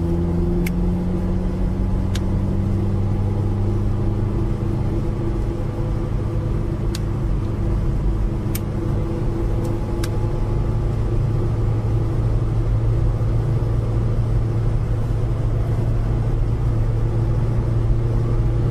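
Car engine running at road speed with tyre and road noise, the engine note rising slowly for the first ten seconds or so, then holding steady. A few sharp clicks are heard in the first half.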